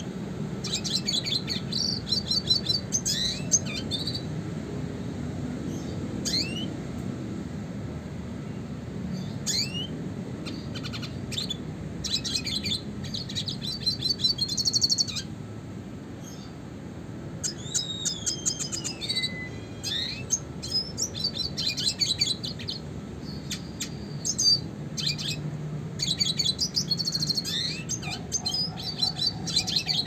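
Male red siskin (Spinus cucullatus) singing: phrases of fast, high twittering trills separated by short pauses, mixed with quick rising chip notes and one long falling whistle about two-thirds of the way through.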